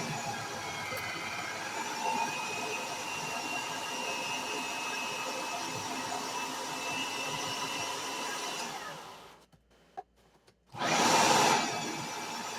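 Small electric cabbage shredder's motor running steadily with a faint whine. It stops about nine seconds in, a single click follows, and it starts up again with a loud burst before settling back to a steady run.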